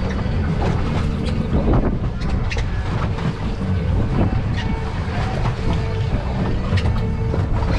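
A fishing boat's engine rumbling steadily under way, with wind buffeting the microphone and scattered knocks.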